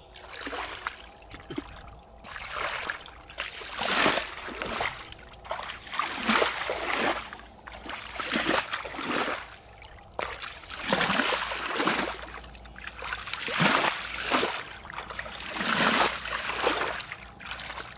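Bare feet sloshing and splashing through shallow liquid mud, a wet swish with each step, roughly once a second.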